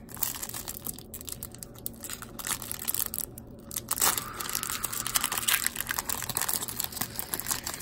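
A foil-wrapped baseball-card pack being torn open by hand, its shiny wrapper crinkling and crackling in a dense run of small crackles, busiest about halfway through.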